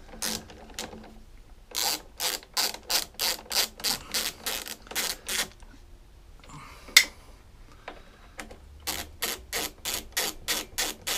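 Socket ratchet clicking in two runs of about three to four clicks a second as a 10 mm carburettor bolt is undone, with one sharper metallic tap between the runs.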